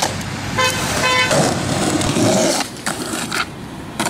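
Skateboard wheels rolling over rough concrete as the board rides up a curved concrete bank, with a car horn honking twice in quick succession about half a second in.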